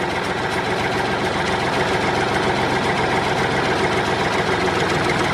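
Tractor engine running steadily with a fast, even chugging.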